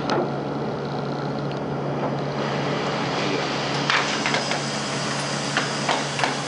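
Steady mechanical hum of a Heidelberg Quickmaster DI 46-4 Plus offset press. A cluster of sharp clicks comes about four seconds in, and a few more near the end.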